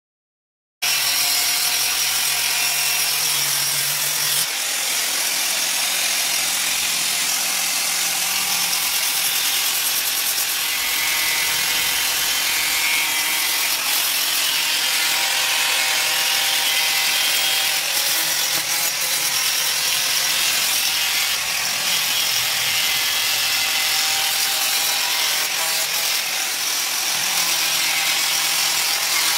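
Handheld angle grinder running steadily, its disc grinding the edge of a steel khara (sacrificial cleaver) blade to sharpen it. It starts abruptly about a second in.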